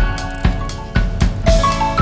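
Background music with a steady drum beat, kick and snare, under a short repeating melody.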